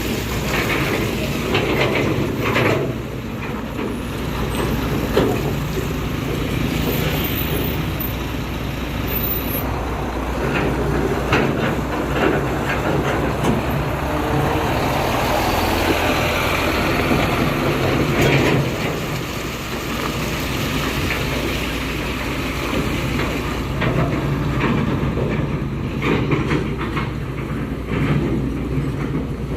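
Heavy diesel engines running steadily under load, with repeated metallic clanks and rattles scattered through. They are those of a loaded FAW JH6 truck and the excavator pushing it on a steep climb.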